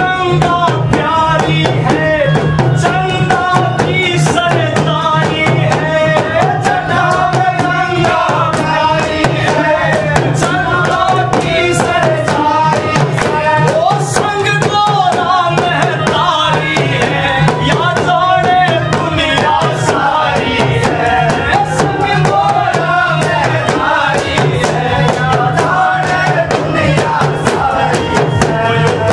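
Haryanvi devotional bhajan music: a melody over steady drumming.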